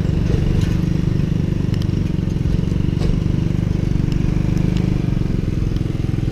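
Tuk-tuk's small engine running steadily under way, with a fast even pulse, and a few light rattling clicks scattered through.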